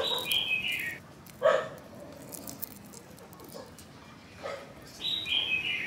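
Thin shell of a boiled quail egg crackling as it is peeled off by hand, in two short bursts about three seconds apart. A high whine that steps down in pitch sounds twice, at the start and near the end.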